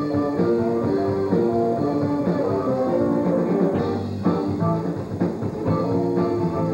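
A live band playing: electric guitars carrying a melodic line of held notes over bass and a drum kit.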